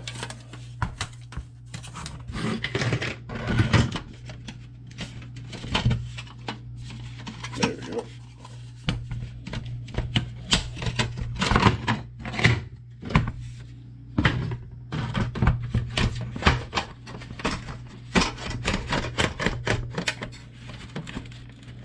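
Plastic clicks, knocks and rubbing as a car radio is slid and worked into the plastic center dash panel of an Oldsmobile Cutlass, with frequent irregular sharp clatters.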